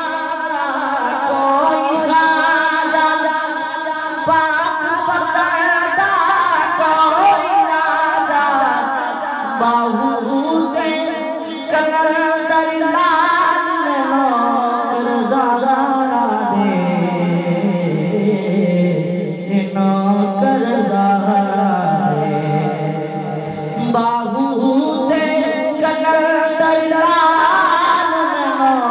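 A man singing a naat, an Urdu devotional poem, with no instruments. He sings into a microphone and his voice comes over a loudspeaker. The melody winds and wavers, with long held notes.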